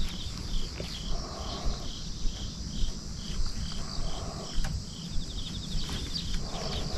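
Insects chirping steadily, about two to three chirps a second with an occasional quick trill, over a low rumbling background.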